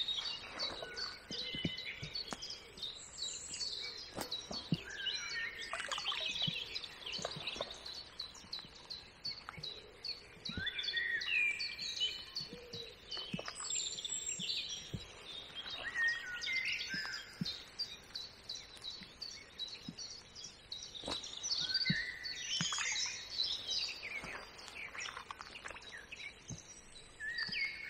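Several wild birds singing and calling at once: many overlapping short chirps, whistles and quick sweeping notes.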